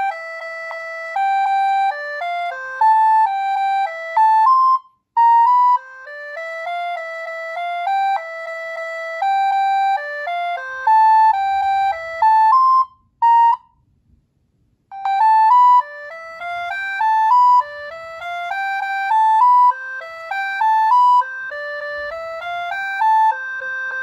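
Nokia 3650 mobile phone playing its built-in ringtones through its loudspeaker. A quick melody of short notes ends a little before halfway, and after a pause of about a second and a half a second ringtone melody begins.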